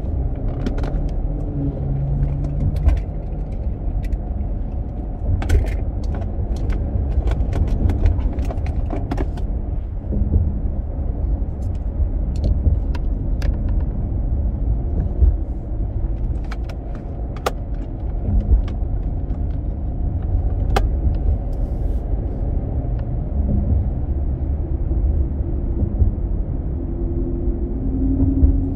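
Road and engine noise inside a moving car's cabin: a steady low rumble, with scattered light clicks and rattles throughout.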